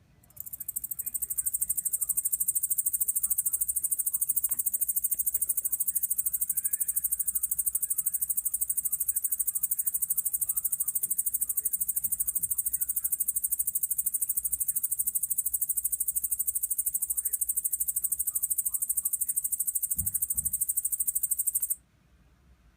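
Yabukiri katydid (Tettigonia orientalis) singing: a continuous high-pitched buzzing trill of very rapid pulses that starts a moment in and stops abruptly about a second before the end.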